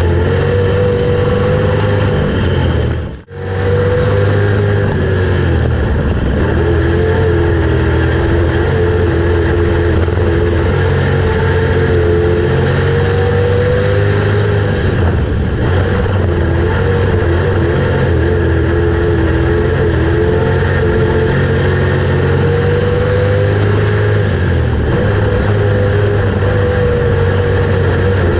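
Dirt-track street stock race car's V8 engine running hard, heard from inside the car. Its note rises and falls as the throttle comes on and off through the turns. The sound cuts out for an instant about three seconds in.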